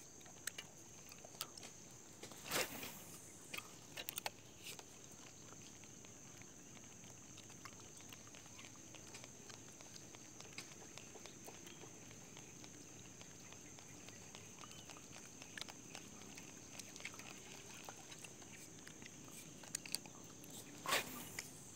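Fishing rod and reel handled while a lure is retrieved: faint scattered clicks and small knocks, with a louder knock about two and a half seconds in and a rustle near the end, over a steady faint high hiss.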